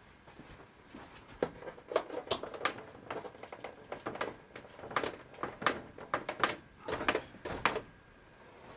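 Rigid PIR foam insulation board being pressed onto stick pins and retaining clips pushed on over them: an irregular run of taps and knocks, several a second, with short pauses.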